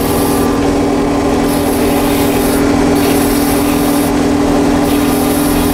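Self-propelled crop sprayer running through a field, heard from inside the cab: a steady engine and machinery hum with one constant tone above it.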